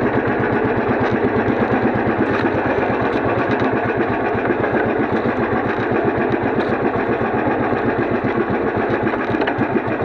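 A small engine running steadily at an even idle-like pace, with a fast regular pulse.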